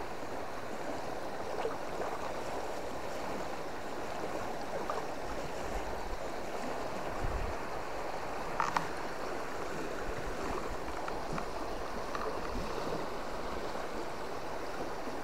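Fast-flowing river current rushing steadily, with a single short click about nine seconds in.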